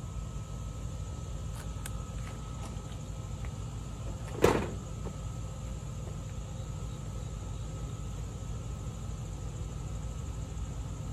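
Steady low outdoor background rumble with a faint steady high whine, a few light ticks early on, and one sharp knock about four and a half seconds in.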